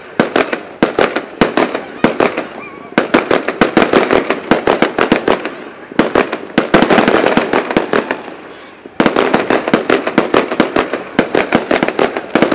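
Fireworks going off: rapid volleys of sharp bangs and crackling, each volley building afresh about three, six and nine seconds in and fading a little before the next.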